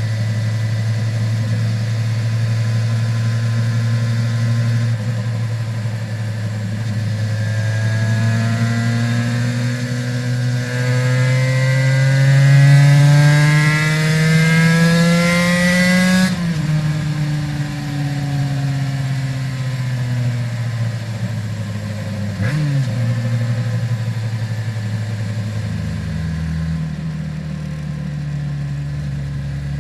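Aprilia RS 250's two-stroke V-twin on Arrow exhausts, ridden onboard: it runs at a steady note, then revs up and accelerates for about eight seconds, breaks off sharply about halfway, and falls away before settling to a low steady note near the end.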